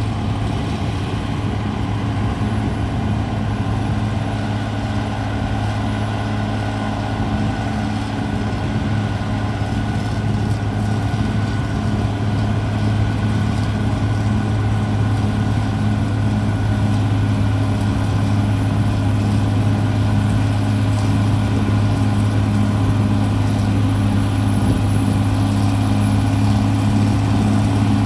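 Diesel engine of a CAT D6R XL crawler bulldozer running steadily with a deep, even hum, growing slightly louder over the second half.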